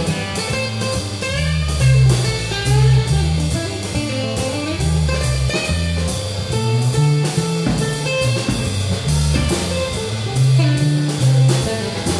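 Live band playing an instrumental break: electric bass and drum kit keeping a steady groove under strummed acoustic guitar and a melodic lead line, with no singing.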